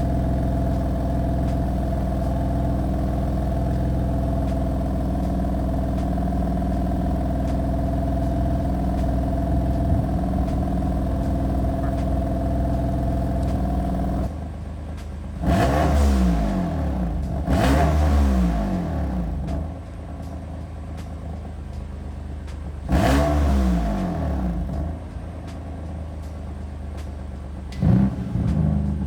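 BMW F80 M3's S55 twin-turbo inline-six idling steadily through an Active Autowerke single mid pipe, with its catalytic converters and resonator deleted. After about fourteen seconds the engine is revved in four short blips that rise and fall.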